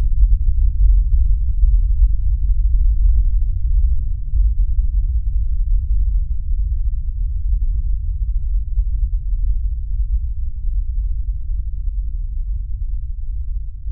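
A deep, steady low rumble or drone with nothing high in it, slowly getting quieter.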